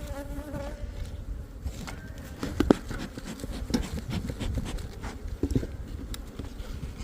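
Honeybees buzzing around an open hive during a frame inspection, with a few sharp knocks from frames being handled, the loudest about two and a half seconds in.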